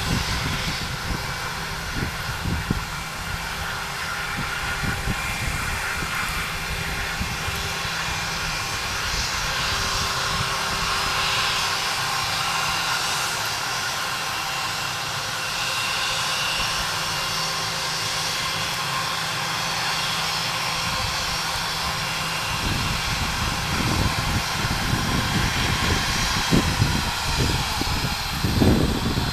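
Airbus A319 jet engines running at low power as the airliner taxis past, a steady whine over a broad hiss. Irregular low rumbling comes in over the last several seconds.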